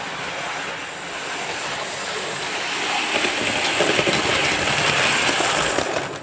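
A model train running on the layout's track, its wheels and motor rattling steadily. It grows louder as the locomotive and its vans draw near and pass close by.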